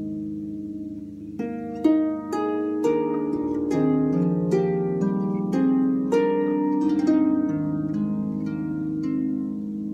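Slow instrumental intro music: single plucked notes picking out a melody over held low chords.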